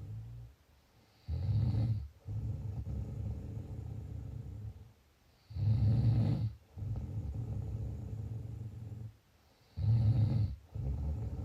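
Snoring in a slow, regular rhythm, about one breath every four seconds. Each breath is a short, loud snore with some hiss, followed by a longer, lower and quieter snore and a brief pause. There are three cycles.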